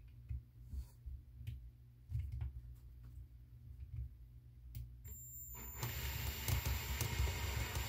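A few light handling knocks, then about five seconds in an electric drill starts running with a steady high whine, turning a reverse (left-hand) drill bit to drill out a snapped, cross-threaded screw.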